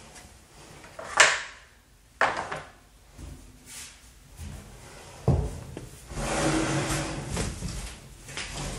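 Husky 6 cu ft steel wheelbarrow tray being tipped and shifted on a wooden workbench: a sharp knock about a second in, another about two seconds in, a heavy thump about five seconds in, then scraping as the tray is slid and settled.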